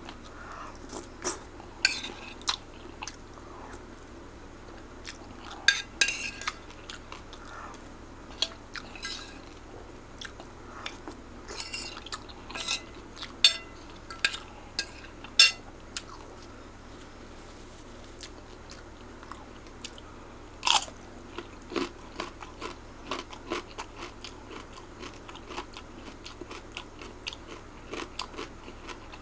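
Close-up eating sounds of mie Aceh (Aceh fried noodles): chewing and crunching mouthfuls, broken by sharp clicks and clinks at irregular intervals.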